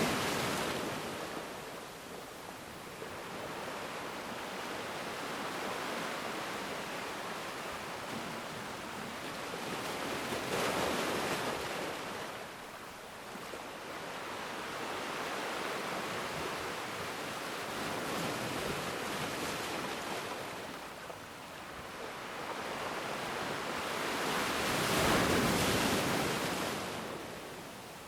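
Ocean waves breaking on a shore: a steady wash of surf that swells into two big breakers, one about ten seconds in and a louder one near the end, each fading back to a hiss.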